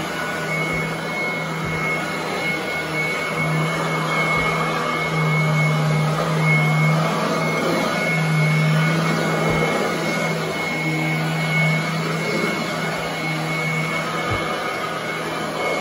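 Royal commercial upright vacuum cleaner running on carpet: a steady motor hum with a thin high whine above it.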